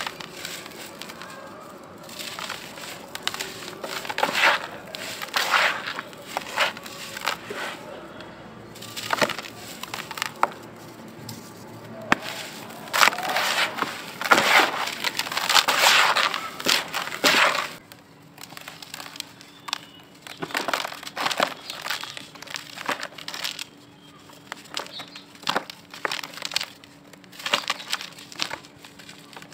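A dry grey compacted powder block being crushed and crumbled by hand in a plastic bucket, in dense bursts of crunching and crackling. The crunching is loudest a little past the middle, then gives way to softer, sparser crumbling as loose powder is squeezed and sifted through the fingers.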